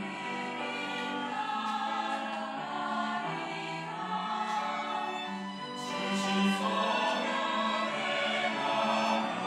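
Church choir singing an anthem with long held notes; the singing swells louder about six seconds in.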